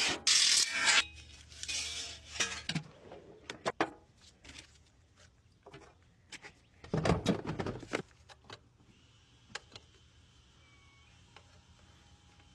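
Irregular clatter, knocks and rubbing of tools and parts being handled. It is loudest in the first second and again in a burst about seven seconds in, with only a few faint ticks late on.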